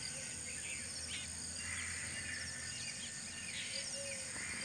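Outdoor ambience of a steady high insect drone with scattered bird chirps and calls.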